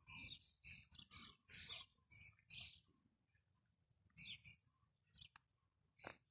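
Faint footsteps crunching on gravel at a walking pace, thinning out after about three seconds.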